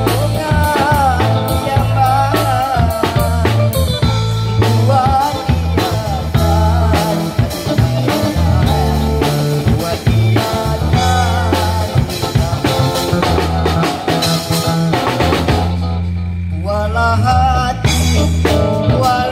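A busker singing a song over band accompaniment, with a steady bass line and a drum kit keeping a beat. The drums drop out briefly near the end, then the voice comes back in.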